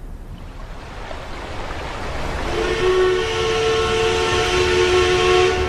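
Steamboat whistle blowing one long chord of several steady tones, starting about two and a half seconds in, over a low rumble and a rising hiss of steam.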